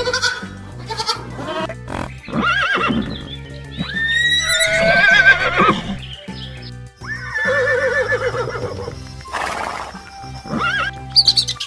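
Animal calls over background music: several drawn-out, wavering cries, the loudest and longest about four to six seconds in.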